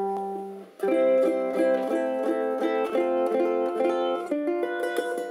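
Ukulele: one string's note rings and fades, then chords are plucked in an even rhythm of about three strokes a second, with a change of chord about four seconds in.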